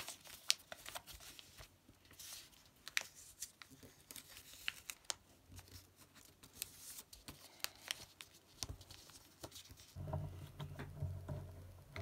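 A sheet of A4 paper being folded and creased by hand on a desk into a paper airplane, with quiet crinkling and rustling broken by many short, sharp crackles. A faint low hum comes in near the end.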